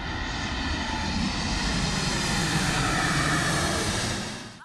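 Boeing 737-8 MAX airliner's twin CFM LEAP-1B turbofans flying low past. The jet noise rushes, with steady whining tones in it, and grows louder, then cuts off suddenly just before the end.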